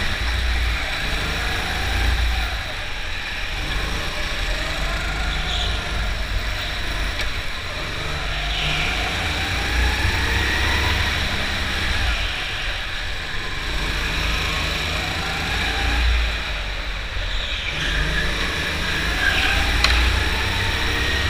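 Go-kart motor heard onboard at racing speed, its pitch rising as it accelerates out of the corners and dropping again, several times over, above a steady low rumble from the kart.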